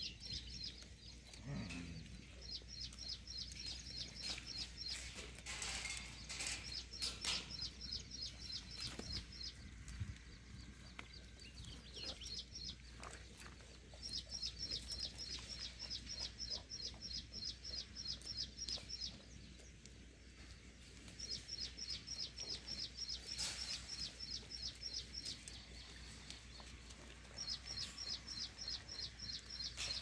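A rapid, high-pitched chirping trill in repeated bouts of a few seconds each, stopping and starting again throughout, from an unseen small animal. There are a few brief rustles among the bouts.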